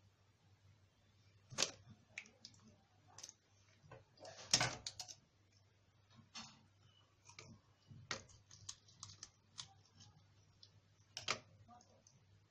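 Irregular clicks, taps and scrapes of a mackerel being cleaned and cut open at a kitchen sink, with a few sharper knocks about a second and a half in, around four and a half seconds in, and near the end.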